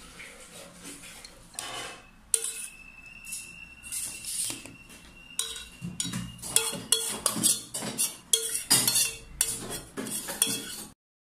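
Spoon scraping and knocking against a stainless steel pot and the rim of a glass jar as chili paste is spooned into the jar, with a dense run of sharp clinks in the second half. It cuts off suddenly near the end.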